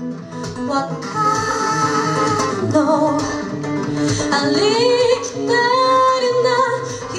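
Female singer singing live into a handheld microphone over guitar accompaniment, holding long notes with vibrato.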